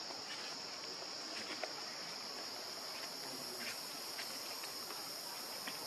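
Steady, high-pitched drone of insects calling in chorus, with a few faint scattered clicks.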